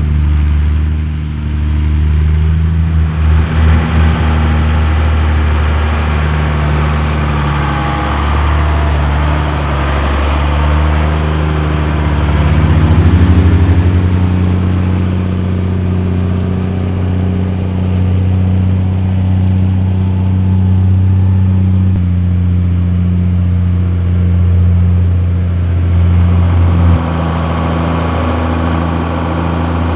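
Mercedes Unimog U1700L truck's diesel engine running as the truck drives slowly over rough riverbed ground, its engine note shifting several times.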